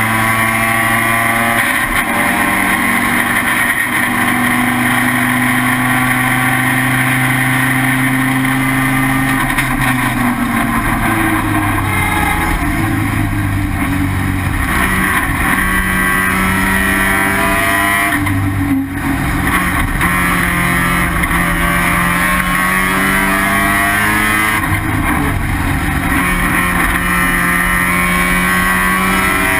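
Rotary engine of an IT7 Mazda RX-7 race car running hard under racing load. Its pitch holds, drops and climbs again through shifts and corners, with a brief lift off the throttle about two-thirds of the way in.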